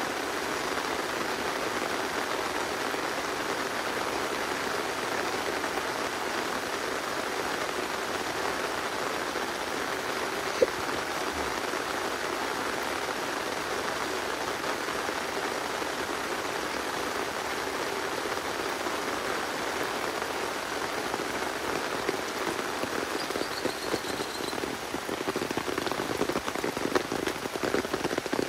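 Steady rain falling on the leaves of a coffee plantation, an even hiss of drops with louder individual drops near the end. A single sharp tap sounds about ten seconds in.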